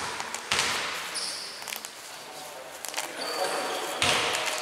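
A basketball bouncing several times on the wooden court, with sneakers squeaking twice, echoing in a large gym hall.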